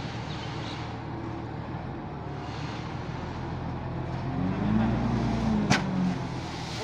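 Dump truck's engine running while the loaded tipper bed raises. The engine speeds up and falls back about four seconds in. Near the end comes a single thump as a sack of cement drops onto the ground.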